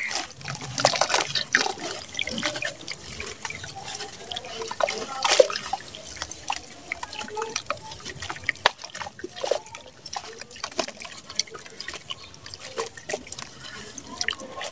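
Wet sand slab crumbled by hand into a basin of muddy water: irregular splashes and drips as clumps and grains fall in, with one louder splash about five seconds in.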